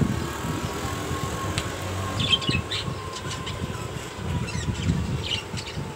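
Caged budgerigars chirping in short bursts, a cluster about two seconds in and another near the end, over a steady low rumble.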